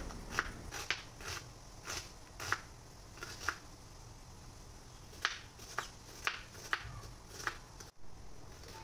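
Kitchen knife chopping a red onion on a wooden cutting board: light, irregular knocks of the blade through the onion onto the board, about a dozen, with a short pause near the middle.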